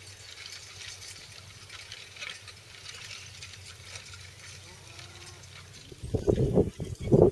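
Faint, even outdoor background, then about six seconds in a sudden loud call starts close to the microphone, breaking into rapid pulses.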